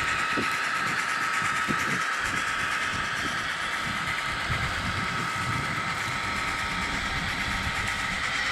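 N scale model train running along the track: a steady whine from the locomotive's small electric motor over a low, uneven rumble of wheels on rail.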